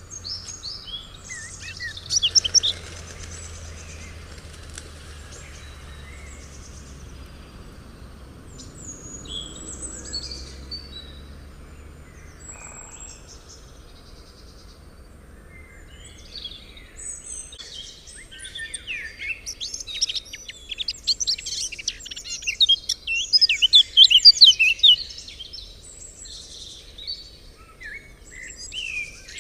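Several wild birds singing and calling in high chirps and short trills, scattered through the first half, then a dense run of rapid chirping in the last third that is the loudest part. A faint low hum sits under the first half.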